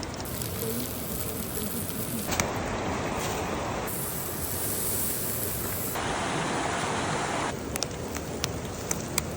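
Rushing stream water, a steady hiss and rush that changes character abruptly a few times, with a few sharp clicks near the end.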